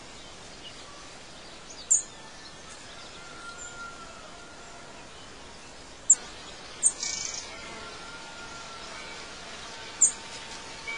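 Birds chirping over a steady background hiss, like a nature ambience recording, with a few sharp high chirps about two, six, seven and ten seconds in and some faint whistled notes between them.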